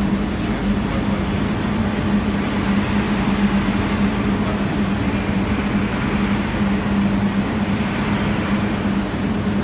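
Electric arc furnace running on graphite electrodes: a loud, steady roar from the arcs with a constant low hum underneath.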